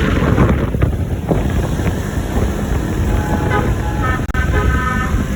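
Steady road, engine and wind rumble on the microphone. From about three seconds in, a bus's multi-tone telolet horn plays short notes at changing pitches.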